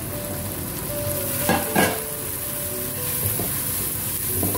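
Onion-tomato masala with freshly added ground spices sizzling as it fries in oil in a pot, stirred with a plastic spatula. The spatula scrapes and knocks against the pot twice, sharply, about one and a half seconds in.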